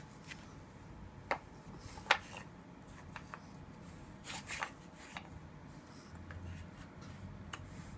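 Scattered knocks and clicks of peg puzzle pieces being handled and set into the puzzle board, the loudest about two seconds in and a quick little cluster around four and a half seconds.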